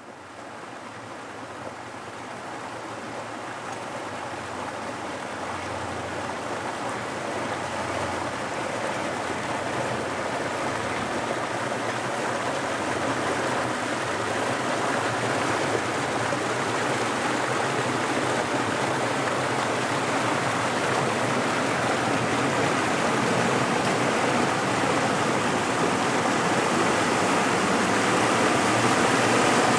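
Water rushing and pouring at a canal lock, through and past the lock gates, as a steady rush that grows gradually louder.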